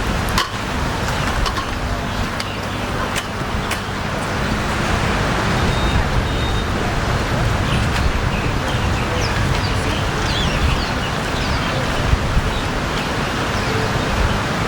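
Steady road-traffic noise of a street, with vehicles running past.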